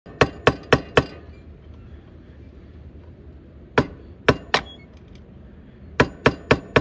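Sharp metal-on-metal hammer blows in three quick groups, four, then three, then four: a screwdriver held against a dirt bike's drive chain is being struck with a flat piece of metal. These are improvised tools, used to knock out a chain link pin.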